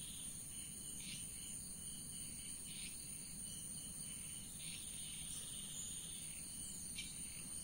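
Insects calling outdoors: a steady high-pitched trill, with short chirps every second or two.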